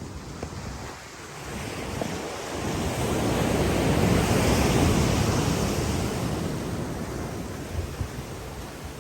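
Sea waves breaking on a beach: one wash of surf swells up, is loudest about four seconds in, and slowly dies away, with wind buffeting the microphone.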